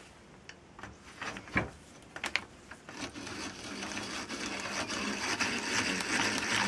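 Hand drill boring into a wooden handle. There are a few clicks and knocks at first, then from about three seconds in a steady whirring rasp of the bit cutting into the wood, which grows louder.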